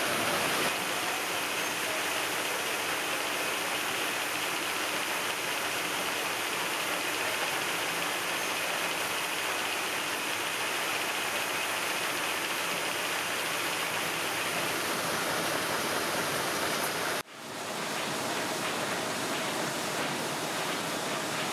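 Steady, even noise of print-finishing machinery running, the hum and rush of paper-handling machines on a production line. About 17 seconds in it cuts out abruptly and swells back within a second.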